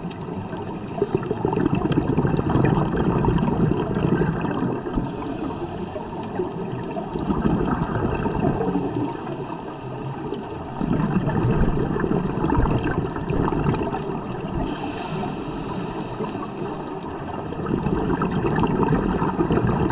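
Scuba diver breathing through a regulator underwater. The bubbling rush of each exhalation lasts a few seconds, about four of them in turn, with a quieter hiss of inhalation between some of them.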